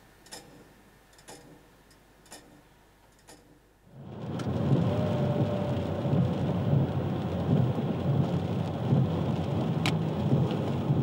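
A clock ticking about once a second in a quiet room. About four seconds in, it cuts to the steady rumble and hiss of a car driving in the rain, heard from inside the cabin.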